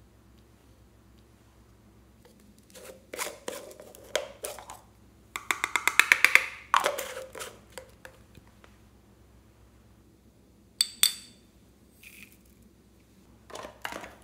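Small plastic containers shaken and tapped over a glass baking dish to pour out glitter and sprinkles: scattered clicks and rattles, a quick run of about eight taps a second in the middle, then two sharp ringing clinks.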